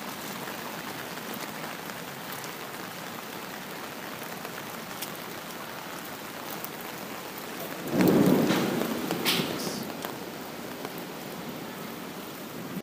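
Steady hiss of falling rain, with a louder, deeper rumble about eight seconds in that fades over a couple of seconds.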